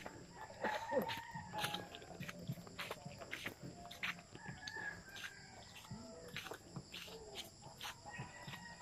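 Chickens clucking and a rooster crowing, fairly faint, over scattered sharp clicks.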